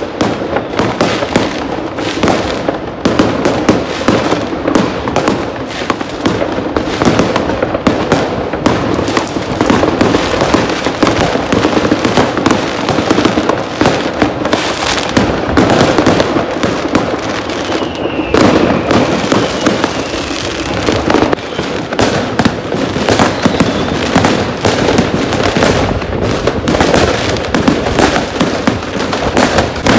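New Year's Eve fireworks going off thick and fast: a continuous barrage of firecracker bangs and crackling with no let-up, and a whistle falling in pitch about eighteen seconds in.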